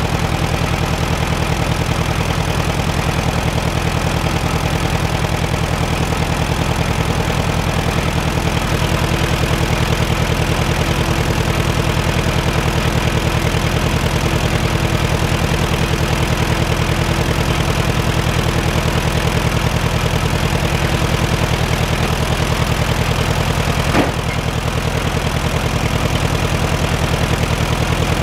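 Case VAC tractor's four-cylinder gasoline engine idling steadily, with one sharp click near the end.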